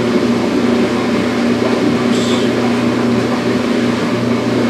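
Shower drain bubbling and sputtering as the washing machine's drain water and suds back up into it, over a steady low hum.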